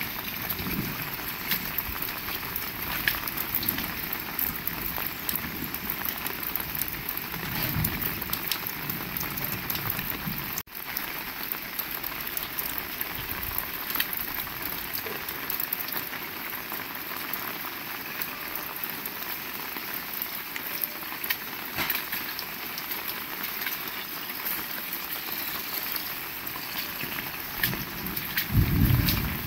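Heavy rain falling steadily, a dense hiss with many separate drops tapping close by. A low rumble comes in during the last second.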